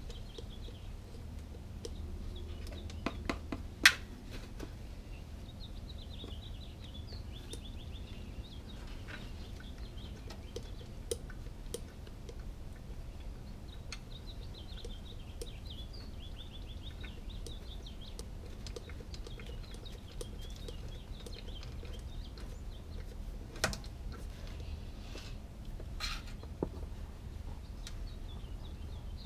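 Hand-operated pistol-grip oil pump can being worked to fill a motorcycle engine with oil, giving scattered sharp clicks from its trigger and can, the loudest about four seconds in, over a low steady hum. Faint bird chirps come and go in the background.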